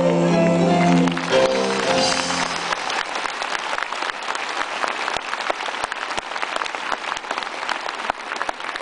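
A live band holds its final chord, which ends about three seconds in, while audience applause starts up beneath it; the applause then carries on alone.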